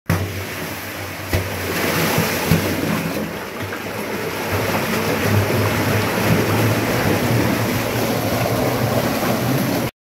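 Sewage water rushing and churning in a manhole around a worker's legs, a loud steady wash with a couple of sharp knocks in the first few seconds. It cuts off abruptly just before the end.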